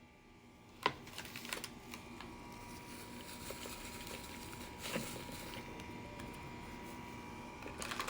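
Light handling of a gift basket and its gift shred: a sharp click about a second in, a few soft taps and rustles after it, and another click near five seconds in.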